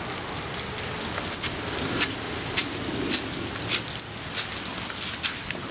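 Steady rain falling, with irregular sharp drips and taps scattered through it.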